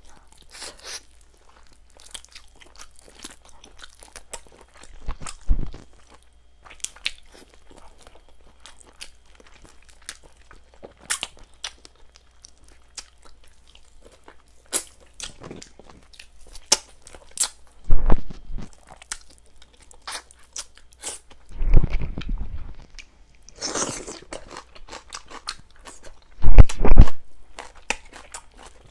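A person chewing and crunching chicken close to the microphone: many small sharp crunches and mouth clicks, with a few louder thumps now and then.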